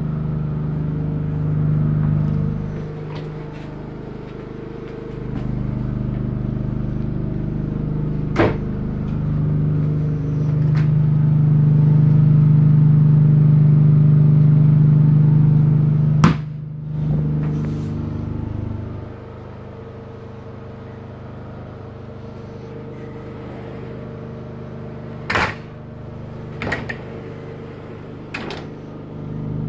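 An engine running steadily, its hum growing louder in the middle and quieter after about 19 seconds in. Sharp knocks come about 8 and 16 seconds in, and a few clicks near the end.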